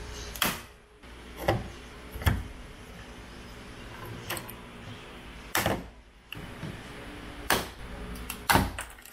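Hand pop-rivet gun setting rivets through a bonnet-pin base plate on a carbon-fibre bonnet. There are about seven sharp snaps and clicks, a second or two apart, as the handles are squeezed and the rivets set.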